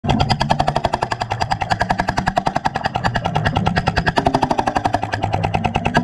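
BR45 hydraulic jackhammer hammering concrete, heard underwater: a rapid, even stream of blows with a low steady hum under them.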